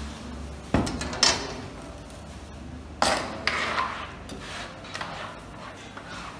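Kitchen clatter: a handful of sharp knocks of utensils against dishes or a work surface, the loudest about a second in and again around three seconds, each with a short ring. A low hum cuts out just before the first knock.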